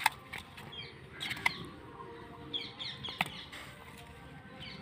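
Faint bird chirps over a quiet background, broken by a few sharp clicks from hands handling live snakehead fish in a steel bowl. The loudest click comes about three seconds in.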